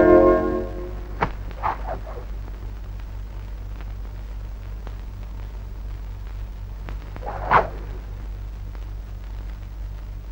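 A brass music chord dies away, leaving the steady low hum and hiss of an old film soundtrack. A click comes about a second in, then a few short sounds: faint ones about two seconds in and a stronger brief one about three-quarters of the way through.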